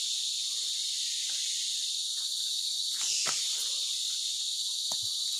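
Steady high-pitched chorus of rainforest insects, with a few faint taps around the middle and one near the end.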